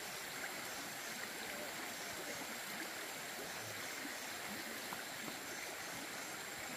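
Steady rushing noise of flowing water, with no distinct events.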